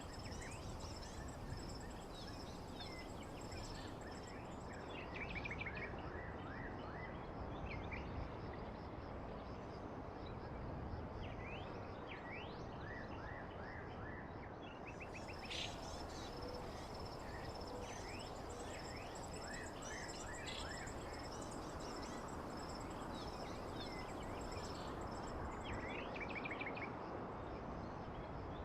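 Nature ambience: birds chirping and trilling over a steady insect drone and a continuous low hiss.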